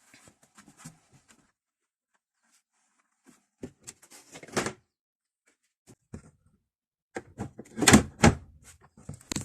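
Knocks and clunks of a twin-tub washing machine's spin-dryer basket being handled and set down on the motor shaft. There are a few light knocks about four seconds in and a louder cluster of clunks near the end.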